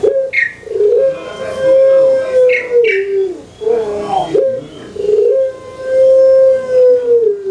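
Puter pelung (Streptopelia risoria, a domesticated ringneck dove) cooing. It gives two phrases, each of short notes followed by one long drawn-out coo that drops in pitch at its end.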